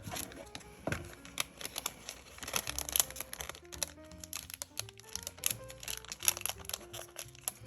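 Quiet background music with a simple stepping melody, over frequent crinkling, rustling and light clicks of plastic-wrapped paper memo pads being handled and pushed back into their packaging.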